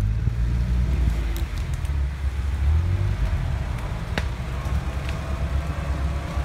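UAZ-469 off-roader's engine running steadily at a low note as the vehicle crawls slowly over rough ground. A single sharp click about four seconds in.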